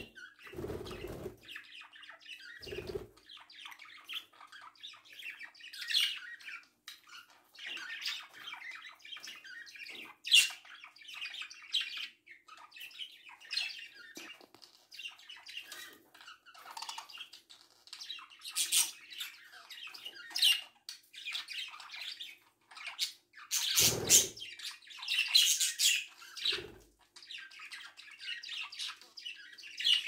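Small pet parrots chirping and squawking in short, irregular calls, with a few dull thumps scattered through.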